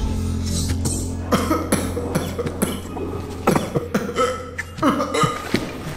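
A man coughing several times in short, separate fits as he comes to on the floor, over a low steady hum.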